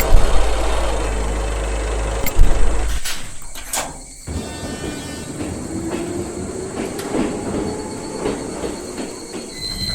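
A train passing close by, loud with rumble and rail noise that starts suddenly. About four seconds in it drops off, and a train carries on running with a slowly rising whine.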